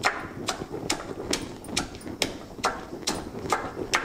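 Stone pestle pounding green chillies in a small stone mortar, a steady rhythm of knocks a little over two a second as the chillies are crushed into a coarse paste.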